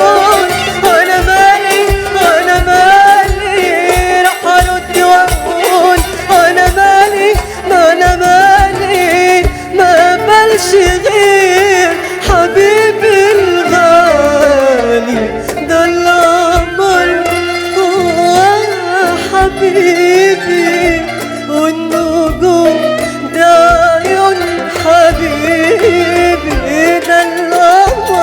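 Instrumental interlude of an Egyptian folk song: a melody instrument plays an ornamented, wavering Middle Eastern line over a steady percussion beat, with one long falling glide about halfway through.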